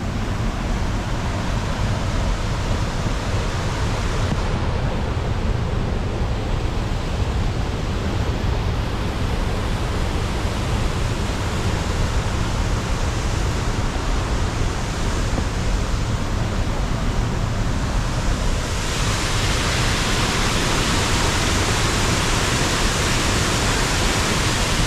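Steady rush of a nearby waterfall, a full, even roar of falling water that grows brighter and hissier about three quarters of the way through.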